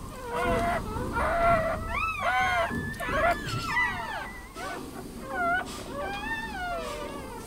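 Newborn puppy crying: a string of short, high squeals, each rising and falling in pitch, about one or two a second.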